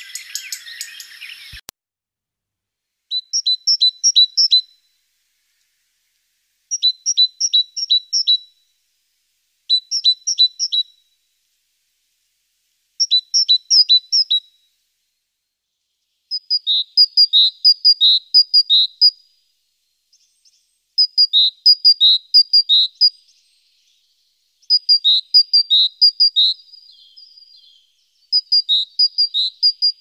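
Great tit singing: about eight phrases of the same quick, high two-note motif repeated several times, each phrase a second or two long with short pauses between. Before the first phrase, a brief rustling noise cuts off abruptly.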